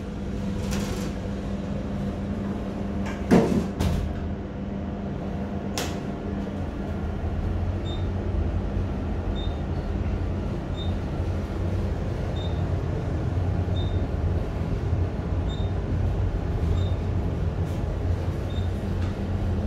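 Otis traction elevator: the car doors close with a few clunks in the first six seconds, the loudest about three seconds in. Then the car rises with a steady low hum from the hoist machine, and from about eight seconds in a faint short beep sounds every second and a half or so, once for each floor passed.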